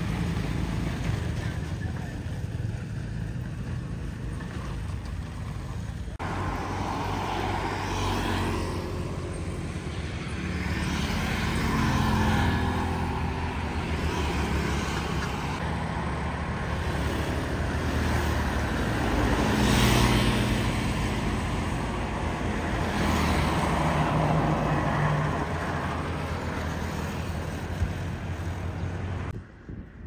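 Motor vehicle traffic: engines running with a steady low hum and rushing road noise, swelling louder several times as vehicles pass. The sound changes abruptly about six seconds in.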